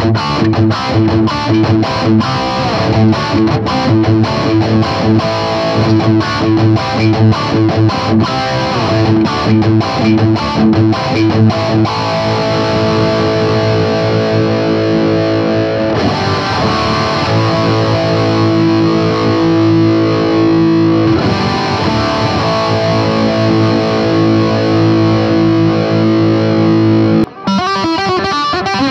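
Harley Benton Fusion II electric guitar on its bridge humbucker, played through an Axe-FX III modelling a Friedman BE100 amp for a distorted lead tone. For about the first twelve seconds it plays choppy riffing of many short hits, then held, ringing notes and chords. It stops for a moment near the end, then comes back with quick notes.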